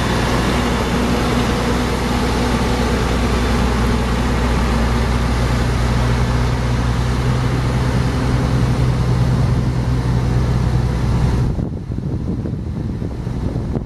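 Caterpillar C12 inline-six turbo diesel of a dump truck running steadily as the truck drives, a deep, even engine note. Near the end the engine sound drops away abruptly, leaving wind noise on the microphone.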